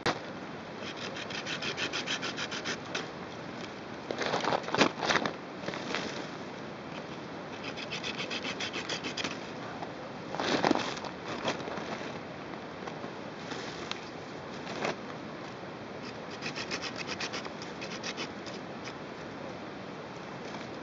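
Quick rhythmic scraping strokes in three runs of a couple of seconds each, with a few louder rasping scrapes about four to five seconds in and again about ten seconds in.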